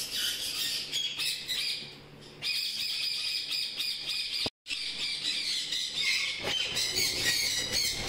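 A flock of caged parrots, ring-necked parakeets among them, squawking and screeching nonstop. The sound cuts out completely for a split second about four and a half seconds in.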